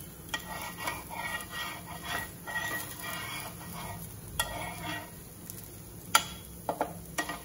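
Metal spatula scraping along the edges and under a crisp dosa on a nonstick dosa tawa, loosening it from the pan, with two sharp clicks of the spatula against the pan in the second half.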